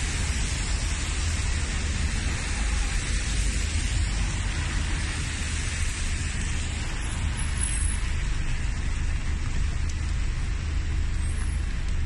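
Steady traffic on a rain-soaked street: tyres hissing on the wet road over the low rumble of passing cars and buses.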